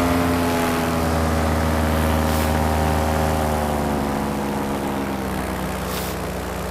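Paramotor engine and propeller running steadily in flight, the note and level slowly easing lower.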